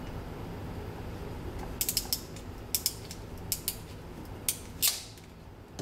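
Ratcheting ring-sleeve crimping tool clicking as its handles are squeezed to crimp a small ring sleeve on two wires. A quick run of sharp ratchet clicks starts about two seconds in and ends with one louder click near the end.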